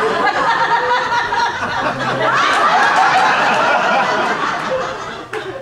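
Audience laughing loudly, with many voices at once, swelling in the middle and dying away near the end.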